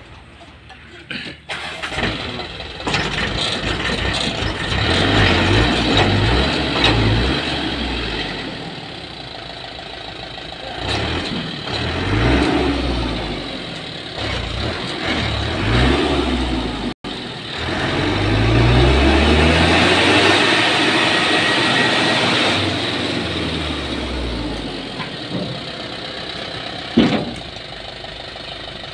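Diesel engine of a tipper truck stuck in mud, revved hard again and again as the truck tries to drive out, its pitch rising and falling with each surge. Near the end there is a single sharp knock.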